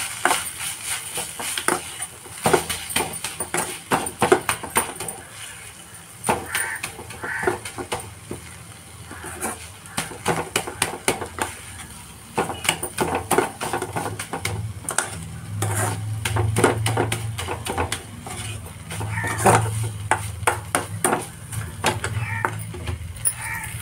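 Steel spatula scraping and clinking irregularly against a metal kadai while stirring minced chicken keema as it cooks, over a faint steady sizzle. A low hum comes in about halfway through.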